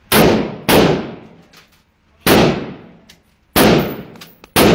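Five single gunshots at irregular intervals, each sharp crack followed by a ringing decay in the enclosed shooting range.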